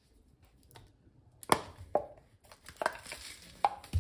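Kitchen clatter: about four sharp knocks and clicks of utensils and containers being handled, starting about halfway through.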